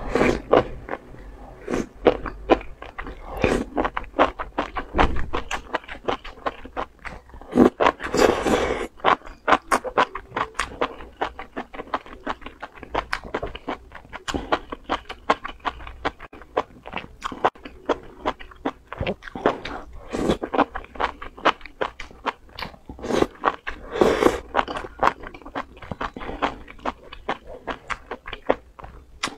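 Close-miked eating of enoki mushrooms in chili sauce: rapid wet crunching and chewing clicks, with a couple of longer slurps as strands are drawn into the mouth.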